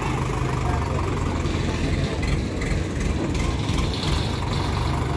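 A heavy machine's engine idling steadily as a low, even hum, with a few faint voices in the background.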